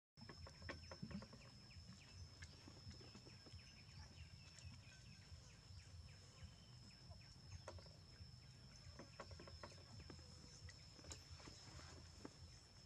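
Near silence: faint outdoor background with a steady high whine and a low rumble, broken by scattered soft clicks and taps of a puppy eating from a bowl.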